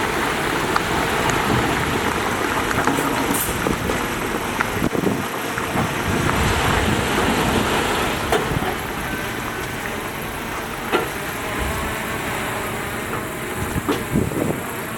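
Heavy diesel construction machinery running steadily, with a few sharp knocks later on.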